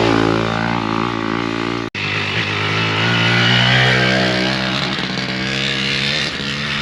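Enduro dirt bike engines running and revving, mixed with rock guitar music, with a brief sudden dropout about two seconds in.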